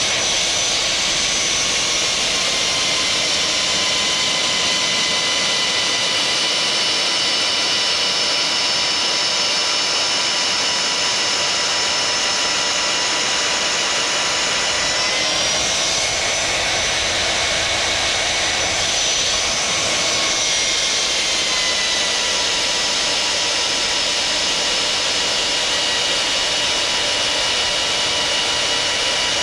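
Magnetic drill's electric motor running under load as an annular cutter bores a 5/8-inch hole through steel angle, a steady high whine. Its pitch shifts slightly about halfway through and again a few seconds later.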